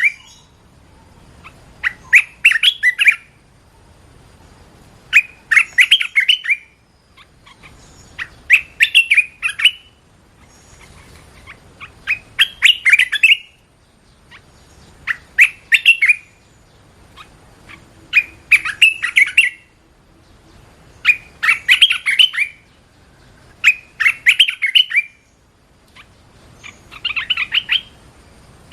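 Red-whiskered bulbul singing: short, quick, chattering song phrases repeated about every three seconds, nine or so in a row.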